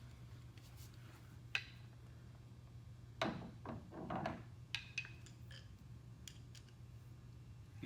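Scattered clicks and rustling as the kayak's carry-handle parts and screw packets are handled, over a steady low hum. There is one sharp click about a second and a half in, and a rustle around the middle.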